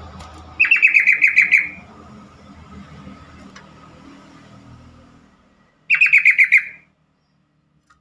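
Yellow-vented bulbul (trucukan) calling: two quick runs of about seven or eight sharp repeated notes each, one a little after the start and one about six seconds in. A faint low hum lies underneath for most of the first five seconds.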